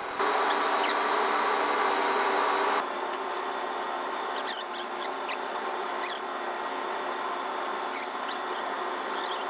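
Steady machinery hum, louder with a hiss for the first two and a half seconds, then lower. Short high squeaks come now and then over it, about eight in the second half.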